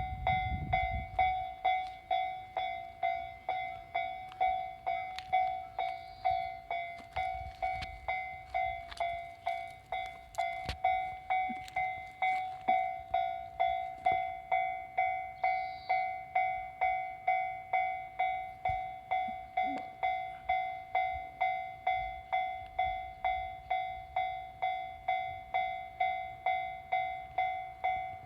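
Japanese railway level-crossing warning bell ringing steadily in a fast, even rhythm of about two strikes a second, each strike a ringing tone that dies away. The crossing is closed for an approaching or passing train. A low rumble sits under the bell in the first second or so.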